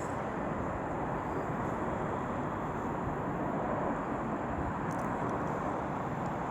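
A steady, even distant rumble from a jet airliner on its landing approach, very quiet, with no distinct events.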